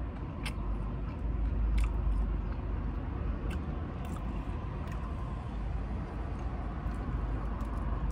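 Steady low road rumble inside a moving car's cabin, with a few sharp, irregularly spaced crunches and clicks from someone chewing food as he drives.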